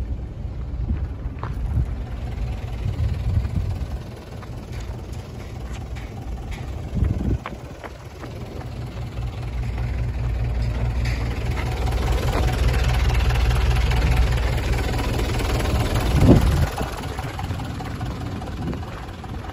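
Mitsubishi Canter's 4D35 four-cylinder diesel idling with a steady low, rhythmic pulse that grows louder over the second half, with two brief knocks.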